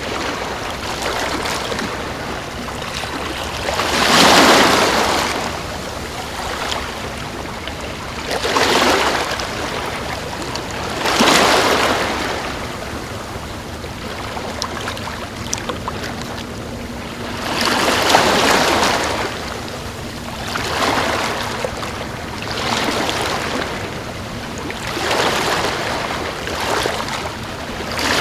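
Sea waves breaking and washing in: a steady rushing wash that swells and falls back every few seconds, the biggest waves coming about four, eleven and eighteen seconds in.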